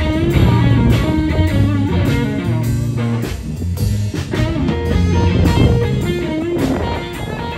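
Live blues band playing an instrumental passage: a Stratocaster-style electric guitar plays lead lines with bent notes over bass guitar and a drum kit.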